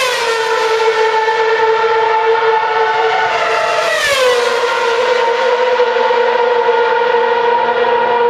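2012 Formula One car's 2.4-litre V8 engine running at a steady high note. Its pitch drops sharply right at the start and again about four seconds in, then holds level each time.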